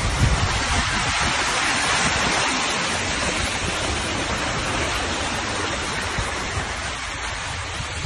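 Steady rushing noise of wind and water in a storm, with wind buffeting the microphone in the first second or so.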